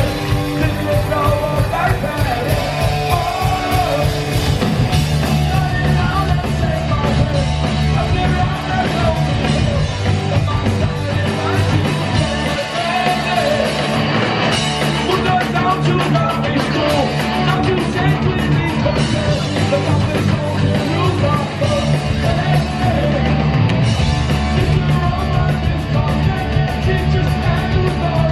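Live punk rock band playing: distorted electric guitars, bass and drums with a lead vocal, as heard from the crowd at the gig.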